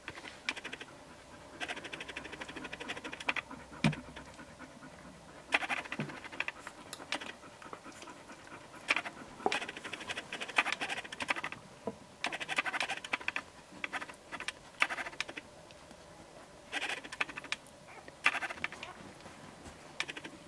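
Bearded Collie mother with her four-day-old puppies: irregular bouts of rapid soft wet clicking from licking and suckling, with some panting.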